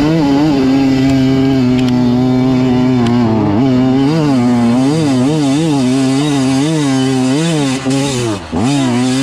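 Beta 200 RR two-stroke dirt bike engine under load on a steep dirt hill climb. It holds a steady high rev for about three seconds. Then the revs rise and fall about once a second as the throttle is worked, with a sharp drop and recovery near the end.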